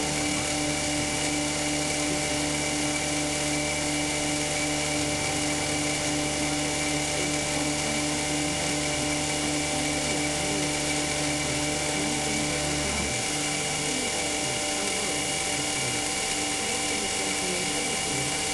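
CNC milling machine running a cutting cycle on stacked 5052 aluminum plates: a steady high-pitched spindle whine over a continuous machine hum. The low part of the hum drops away about two-thirds of the way through.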